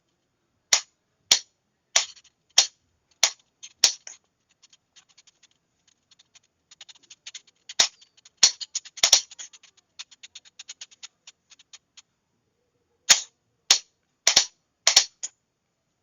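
Sharp clicks of a Morse signalling key being worked with no sounding tone. Loud single clicks come about every half-second, then a run of quicker, fainter clicks in the middle, then loud clicks again near the end.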